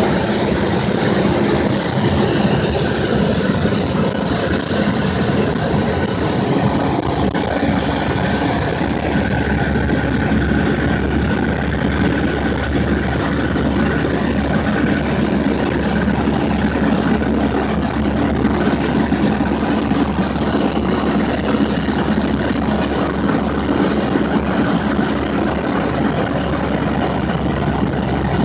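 Cessna 172's piston engine and propeller running steadily, a loud drone heard from inside the cabin.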